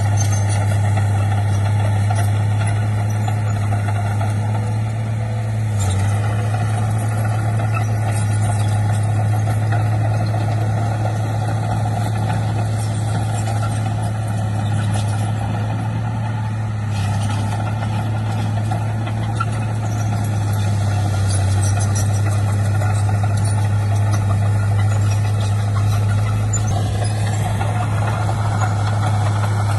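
Heavy diesel engine of earthmoving machinery running steadily with a deep constant hum. Its tone shifts slightly a few seconds before the end.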